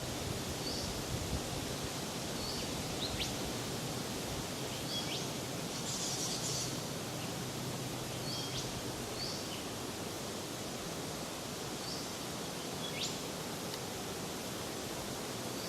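Steady outdoor bush ambience with short, high chirps and quick upward-sweeping calls from small birds, repeated every second or two, and a brief higher chatter about six seconds in.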